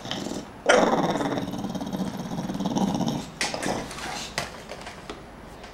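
English bulldog growling in one long, rough grumble of about two and a half seconds, followed by a few shorter grunts.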